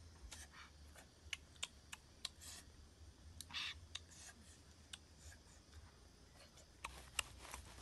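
Quiet, scattered small clicks and crinkles from hands handling leaves and food, with a longer leafy rustle about halfway through and a run of clicks near the end.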